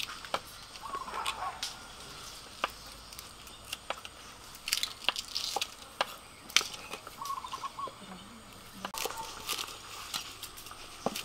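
Knives cutting on wooden chopping boards: irregular clicks and taps as meat and greens are sliced. A bird calls briefly twice in the background, about a second in and again about seven seconds in.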